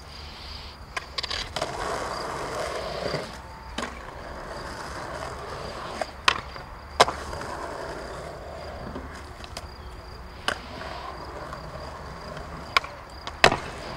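A skateboard rolls on concrete, its wheels making a steady rumble. About nine sharp cracks stand out as the board is popped for nollies and slaps back down on landing, the loudest near the middle and near the end.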